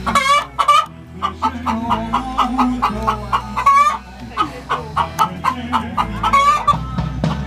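Chickens calling: a rapid run of short repeated calls, several a second, with longer drawn-out calls at the start and again near the end.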